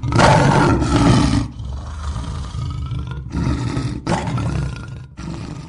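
Lion roar sound effect: a loud rough roar over a deep rumble for the first second and a half, then several shorter roars with brief breaks between them.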